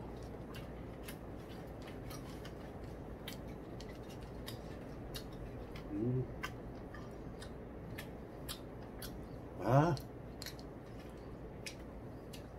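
Faint steady room hum with light, sharp clicks about twice a second. A man makes two short voiced sounds, about six and ten seconds in, the second louder and rising in pitch.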